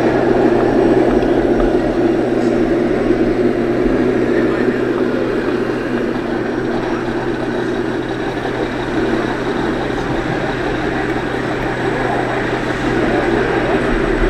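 Radio-controlled scale semi truck's onboard sound unit playing a steady diesel engine sound through its speaker as the truck drives slowly.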